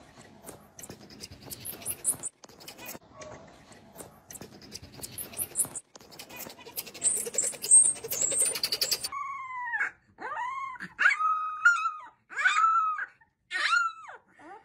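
Very high, thin chirps of marmosets in short runs over handling noise; then, about nine seconds in, a small black puppy whimpering and yelping in a string of short, wavering cries while being held.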